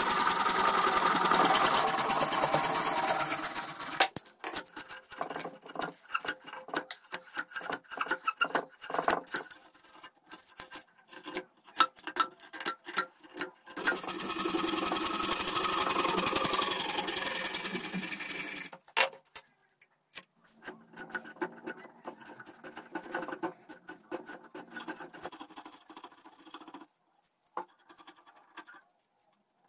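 A fine saw blade running fast through green bamboo in two steady stretches, near the start and again in the middle. Between and after them come irregular scraping and clicking strokes of tools working the bamboo, ending with a knife shaving it.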